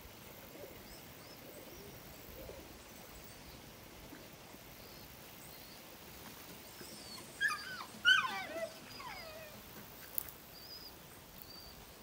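A dog giving a few short yelps that fall in pitch, a little past the middle, over a quiet outdoor background with faint bird chirps.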